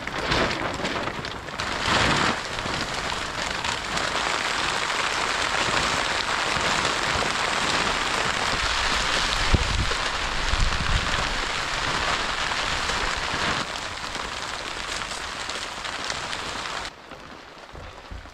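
Heavy rain falling steadily, a dense hiss that drops off sharply near the end.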